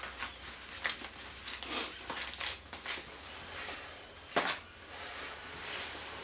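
Rustling and crinkling of MRE packaging being handled and rummaged through, a run of short rustles with one louder rustle about four and a half seconds in.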